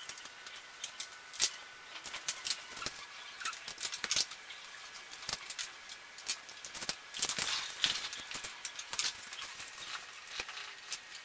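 Small metal parts of an air-rifle filling unit clicking and tapping irregularly as they are handled and fitted together by hand, with a quick run of clicks about two-thirds of the way through.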